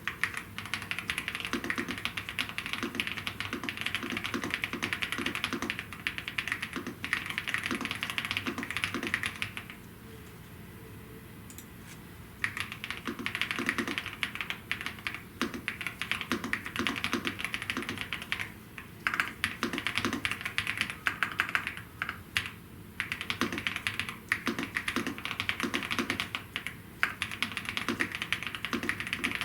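Continuous typing on a Gravastar K1 Pro mechanical keyboard: quick runs of clacking keystrokes, broken by a pause of about two seconds a third of the way in.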